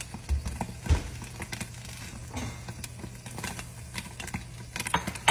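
Popcorn kernels popping in a covered pan under a glass lid: scattered, irregular pops, a few louder than the rest, as the batch nears the end of popping.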